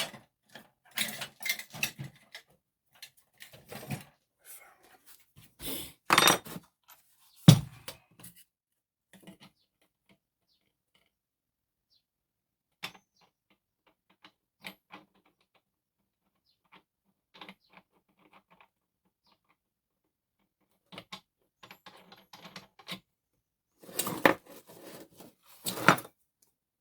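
Clicks, clinks and knocks of hands working the disc and flange nut of a Dewalt DCG412N cordless angle grinder while trying to tighten the disc without its special tool. They come in scattered bursts with quiet gaps, with one sharp knock about seven and a half seconds in. The grinder is not running.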